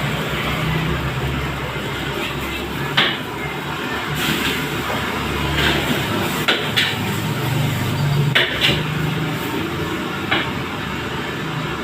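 Metal spatula knocking against a wok about seven times at irregular intervals while nasi goreng (fried rice) is stir-fried, over a steady background hum.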